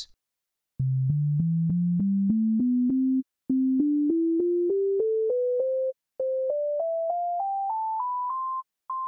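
Pure sine tones play the C major scale up through successive octaves, eight notes to an octave, each lasting about a third of a second with a slight click at its start. They begin about a second in, with a short pause between octaves, and the fourth octave starts near the end.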